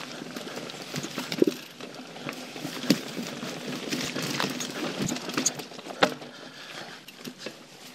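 YT Jeffsy mountain bike rolling over dry leaves and dirt on forest singletrack: steady tyre crunch and hiss, broken by sharp knocks and rattles from the bike over roots and rocks, a few of them much louder than the rest.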